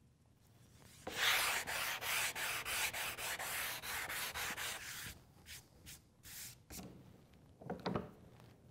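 A sanding block with 150–180 grit sandpaper worked by hand across a plywood panel in quick back-and-forth strokes, several a second, for about four seconds starting about a second in. A few fainter, short handling sounds follow near the end.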